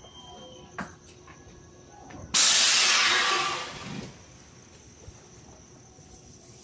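A sudden loud hiss of compressed air escaping from a train's air system, starting about two seconds in and dying away over about a second and a half.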